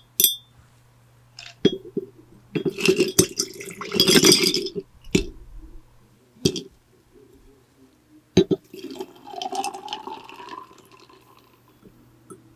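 Glass mason jar being handled with several sharp clinks, then milk poured into it, the pour's pitch rising as the jar fills about nine seconds in. A steady electric fan hum runs underneath.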